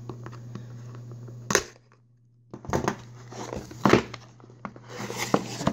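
A cardboard shipping box handled and picked open by hand: fingernails scratching at the tape and flap, and the box knocking and sliding on a tabletop, in a series of sharp clicks and scrapes. A short gap of silence comes about two seconds in.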